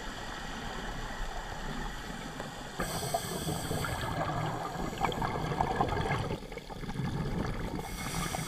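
Scuba regulator exhaust bubbles heard underwater through a camera housing: a diver exhaling, with a burst of crackly bubbling about three seconds in and another near the end, over a steady low hiss.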